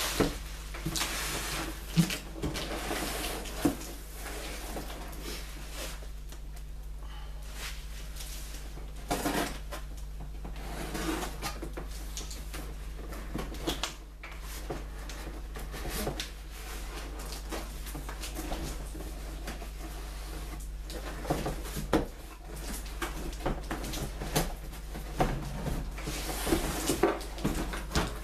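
Large cardboard box being opened and handled: flaps rustling and scraping, with scattered knocks and thumps, over a steady low hum.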